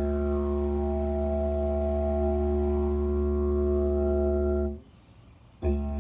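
Lightweight didgeridoo playing a steady low drone, with an overtone sweeping down and then back up as the player shapes the note with his mouth. The drone stops about five seconds in and starts again with a sharp attack just before the end.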